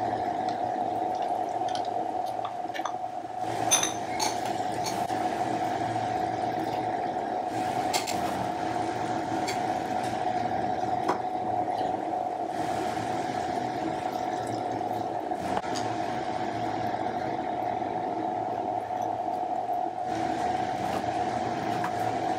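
Minced mutton keema cooking in a pan, a steady hiss of simmering over a constant hum, with a few sharp clicks of a spatula against the pan.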